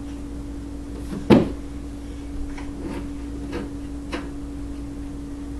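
A baby knocking against a cardboard box: one sharp thump a little over a second in, then four lighter taps, over a steady low hum.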